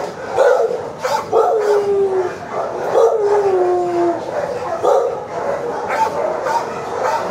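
Many dogs barking in a kennel room, with two long howls, each a held note that falls slightly in pitch, about a second in and again near the middle.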